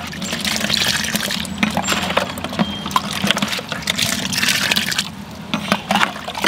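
A ladle stirring dark red liquid in a plastic tub, scooping it up and pouring it back in a stream, with repeated splashing and sloshing.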